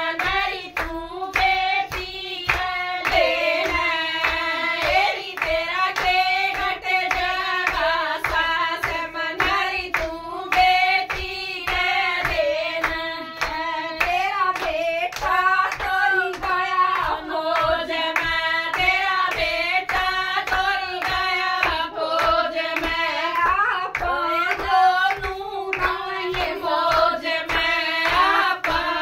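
A group of women singing a Hindi folk bhajan together, unaccompanied, with a steady beat of hand-clapping.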